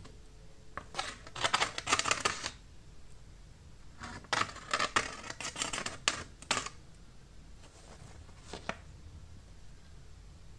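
Freshly sharpened kitchen knife slicing through a sheet of paper in two strokes, each a crisp crackling rasp lasting a second or two, with a short faint scrape about eight seconds in. This is a paper-cutting test of the edge's sharpness.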